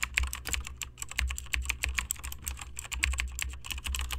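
Rapid, irregular clicking, many clicks a second, over a low rumble that swells and fades.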